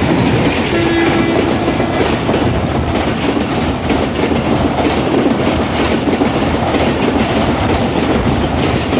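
Diesel-hauled passenger train passing close by at speed: a loud, steady rumble of wheels on rail with rhythmic clatter over the rail joints, and a brief steady tone about a second in.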